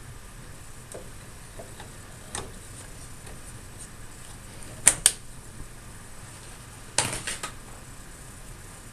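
Memory modules being pressed into server memory slots, the white retaining levers snapping shut: two sharp clicks about five seconds in and a quick run of clicks about two seconds later.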